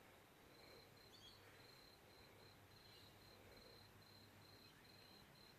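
Faint ambience with a high insect chirp repeating at an even, quick rhythm, like a cricket, over a low hum.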